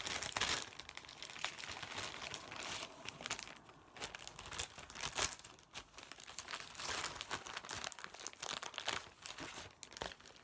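Plastic packaging crinkling and rustling as it is handled, in irregular crackles with a couple of short lulls.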